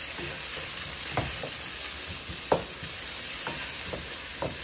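Sliced onions and green chillies sizzling in hot oil in a pot, frying as the base of a masala, while a wooden spoon stirs them. The spoon knocks against the pan about five times, sharpest about two and a half seconds in.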